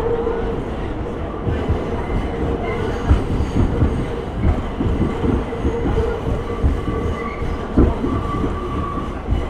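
Interior of a moving subway car: the steady rumble and hum of the train running, with irregular clacks and knocks of the wheels over the track from about three seconds in. A thin wheel squeal sounds in the last couple of seconds.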